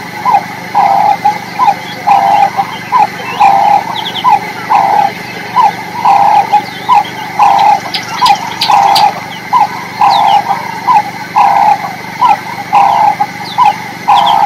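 Repeated animal calls in a steady rhythm, longer and shorter notes alternating about every 0.7 seconds, with high bird chirps above.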